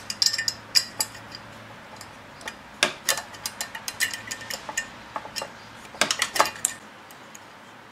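Small metal hardware clicking and clinking in irregular clusters as a nut, washer and bolt are worked off a terminal of a MIG welder's rectifier.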